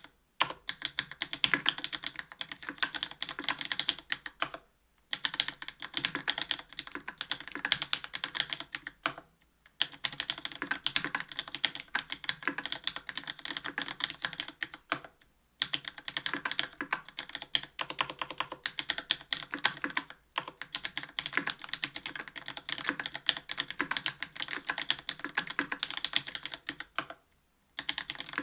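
Fast, steady typing on a Linworks Special Dolphin mechanical keyboard with Cherry MX Black linear switches in an aluminium plate and GMK Modern Dolch Light keycaps, dense runs of key clacks broken by brief pauses about every five seconds.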